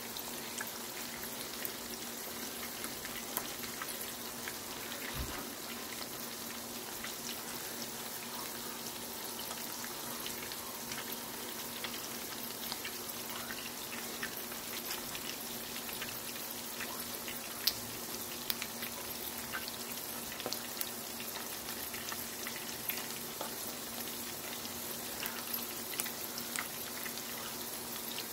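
Marinated pork chops frying in garlic butter in a nonstick skillet: a steady sizzle full of small crackles. There are scattered louder pops, the biggest about two-thirds of the way through.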